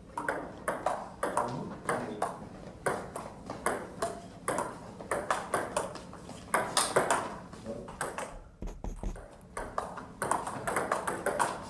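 Table tennis ball in a rally, clicking in quick alternation off the rubber-faced paddles and the table, each hit echoing in the hall. A short break about eight seconds in, then the ball is in play again.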